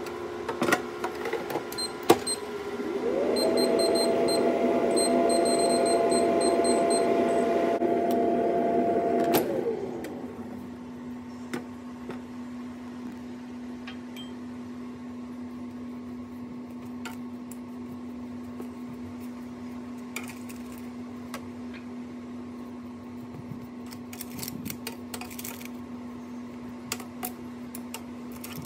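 Kalite Q6 air fryer in use: a couple of clicks, then its fan spins up to a steady whir, with a run of short high beeps, and winds down with a falling pitch after about six seconds. A fainter steady hum with a few light clicks follows.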